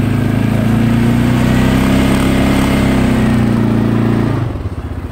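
CFMoto ATV engine held at high revs for about four seconds as it pushes through deep snow on a climb, then dropping back to a lumpy idle near the end.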